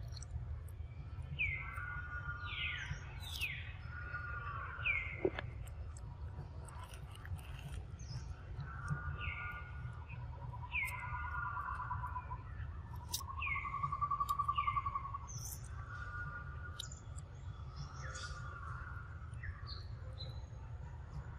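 Birds calling: repeated short chirps falling in pitch, with a louder buzzy trill about two-thirds of the way through, over a steady low rumble.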